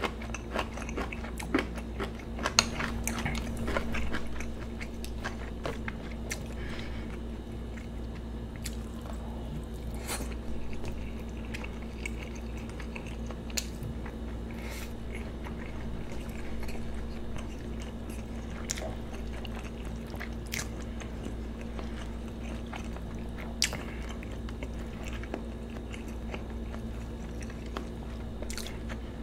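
Close-miked mukbang eating: chewing and mouth sounds from eating braised kimchi with saury and rice, made up of scattered wet clicks and smacks. The sounds come thickest in the first few seconds and more sparsely after. A steady low hum runs underneath.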